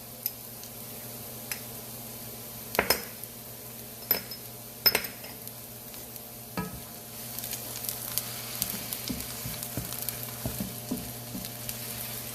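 A metal utensil knocks and clinks against a pan several times, then from about seven seconds in aromatics frying in coconut oil sizzle and crackle steadily while being stirred with Thai chili paste.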